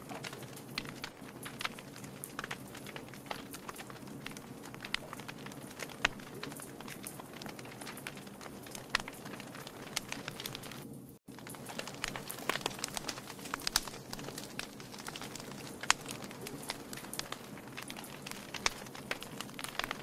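Wood logs burning in a fireplace, crackling with irregular sharp pops and snaps over a soft steady hiss. The sound drops out for an instant about halfway through.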